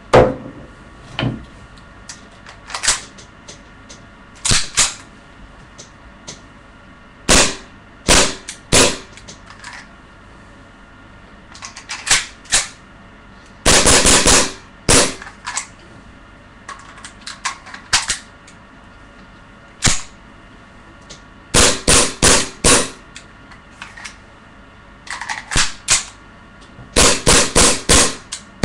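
CZ75 gas blowback airsoft pistol firing: sharp cracks of the shot and slide, some single, some in quick strings of four or five in a row.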